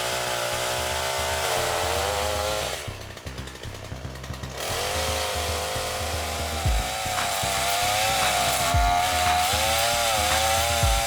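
Chainsaw cutting into the trunk of a Cassia siamea tree, its engine pitch rising and falling under load. About three seconds in it drops to a quieter idle for a second or so, then goes back to full throttle and cuts on.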